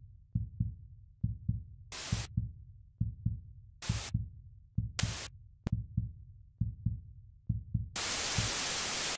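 Heartbeat-like sound effect: low double thumps about once a second, with short bursts of static hiss cutting in three times. A longer burst of static comes near the end and cuts off suddenly.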